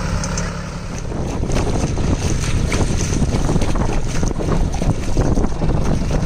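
John Deere tractor's diesel engine running while it drives through river water, with splashing and churning water around the wheels taking over from about a second in.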